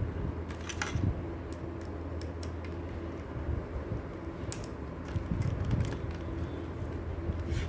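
Small metal construction-kit parts and a nut-bolt driver being handled, giving scattered light clicks and taps as a nut and bolt are fitted and tightened, with the clearest clicks about a second in and about four and a half seconds in. A steady low hum runs underneath.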